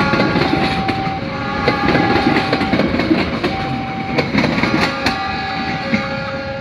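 Passenger coaches and a baggage car of a departing train rolling past close by, the wheels clicking over rail joints. A two-tone warning alarm switches back and forth between a higher and a lower note. The sound fades slightly toward the end as the train moves away.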